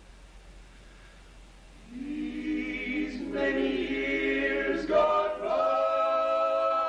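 Barbershop quartet: four male voices singing a cappella in close harmony. After a soft lull the voices come in about two seconds in, build, and settle into a loud held chord for the last second or so.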